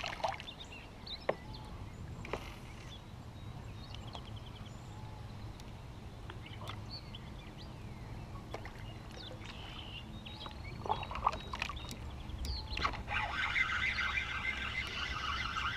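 Outdoor lake ambience heard from a kayak: a steady low rumble, scattered short bird chirps and a few light knocks. Near the end a louder, busier stretch of higher-pitched sound comes in.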